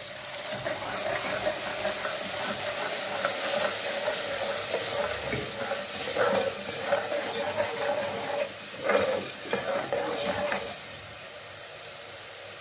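Wet tomato and onion paste sizzling as it hits hot oil in a metal pot, with a metal ladle stirring and scraping against the pot a few times. The sizzle quietens near the end.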